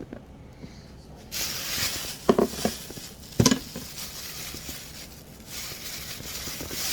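Kitchen work sounds: a steady hiss starts suddenly about a second in and stops a little over a second before the end, with two sharp clatters of pans or utensils in the middle.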